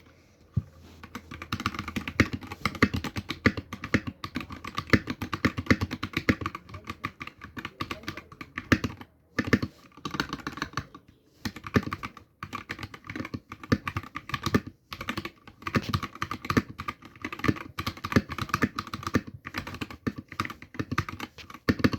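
Typing test on a 65% wireless mechanical keyboard with a switch puller for its switches: a quick, continuous run of keystroke clacks, broken by a few brief pauses.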